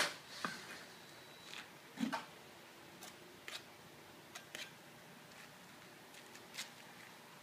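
Scattered sharp taps and knocks of bullnose coping pavers being handled and set: a loud click right at the start, a duller knock about two seconds in, then lighter taps a second or so apart.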